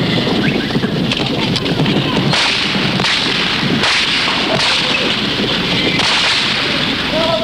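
Old film soundtrack of a chase scene: a loud, constant rush of noise with sharp cracks through it.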